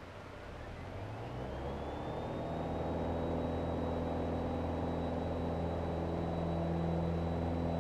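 Piper Warrior's four-cylinder Lycoming engine and propeller, heard from inside the cockpit, coming up to full takeoff power during the takeoff roll. The engine builds over the first few seconds, with a high whine rising in pitch, then runs steadily at full power.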